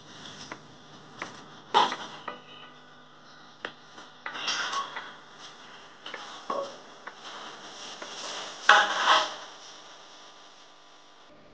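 Scattered light knocks and rustling of a person shifting about and getting up from kneeling on the floor, with a few louder rustling bursts, the loudest about nine seconds in, over a faint steady hum.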